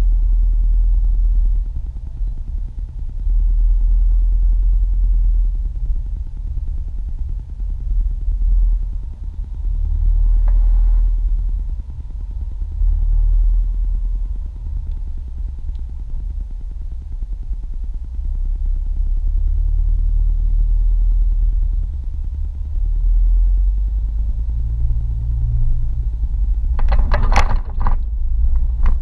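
Car driving on a highway, heard from inside the cabin: a steady low rumble of engine and road noise that swells and dips. Near the end comes a short cluster of sharp clicks.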